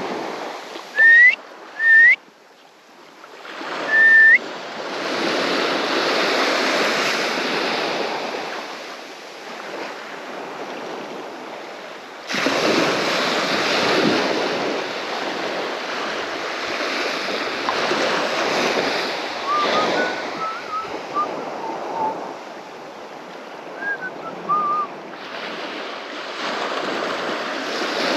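Small waves breaking and washing up a sandy beach, the rush swelling with each new wave. Three short, loud, rising whistled notes in the first few seconds, and a few fainter chirps later on.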